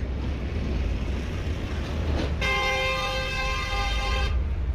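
A vehicle horn sounds one steady held note lasting about two seconds, starting about halfway through, over a steady low rumble of traffic.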